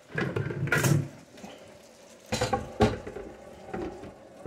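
Kitchen cookware clattering: a glass pan lid being handled and set down, with a few short knocks and clinks in two main clusters, about a second in and again around two and a half seconds in.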